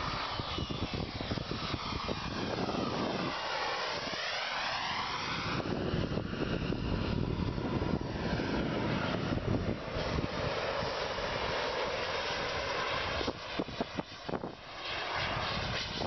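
Radio-control model jet flying past with a steady rushing engine noise. Its tone sweeps as it passes, about three seconds in.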